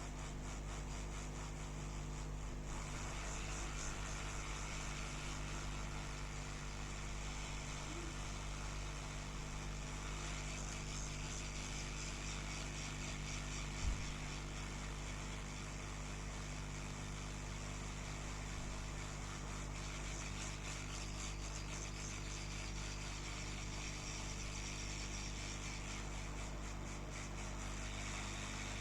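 Hot air rework station blowing a steady stream of hot air while the charging port's solder is heated, heard as an even hiss over a steady electrical hum. One short click sounds about halfway through.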